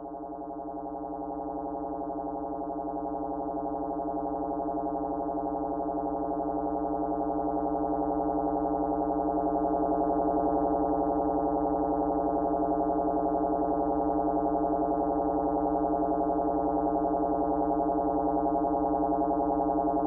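Eurorack modular synthesizer sounding one sustained drone, a dense, unchanging stack of overtones with a rapid pulsing flutter. It swells slowly in volume over the first half and then holds steady.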